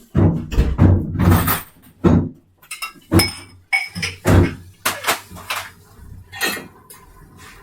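A run of knocks, clatters and clinks of hard household objects being handled, like dishes or glass. The sounds are thickest and loudest in the first two seconds, then come singly every half second or so.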